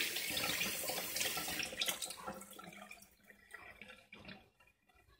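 Cold tap water running into a pot of hard-boiled eggs, fading away over about the second to fourth seconds as the flow stops.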